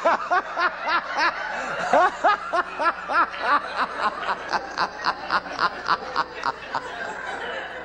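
Laughter: a long run of quick ha-ha bursts, about four a second, trailing off near the end.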